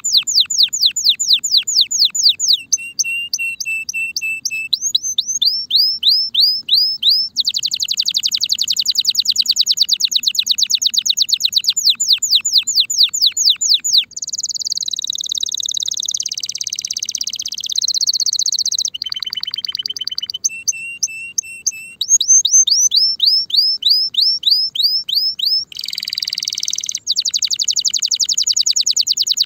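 Spanish Timbrado canary in breeding condition singing a long, unbroken song: fast rolls of repeated down-slurred notes, twice a steady held whistle, and a harsher rasping passage in the middle and again near the end.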